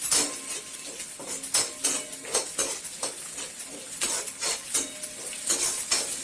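A spoon stirring and scraping in a kadai, about two strokes a second, as small onions and garlic fry in sesame oil with a light sizzle.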